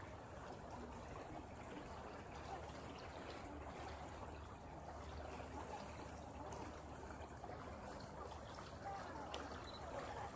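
Steady rushing and trickling of water over a low, even hum.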